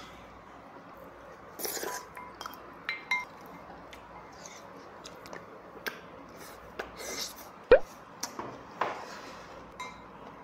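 Wooden spoon scraping and clinking against a ceramic bowl as the last of the rice is scooped out, with chewing in between. A few clinks ring briefly, and one sharp knock about three-quarters of the way through is the loudest.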